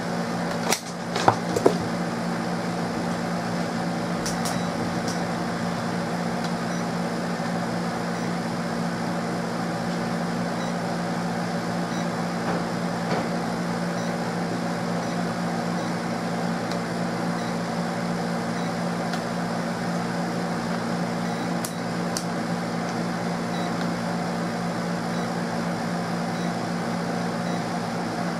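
Steady hum of a running electric fan, with a few knocks in the first two seconds.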